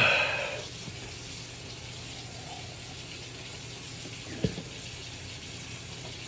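A man blowing out a hard breath through a mouth burning from an extremely hot pepper chip, fading within the first second. Then a steady low hiss, with a single short knock about four and a half seconds in.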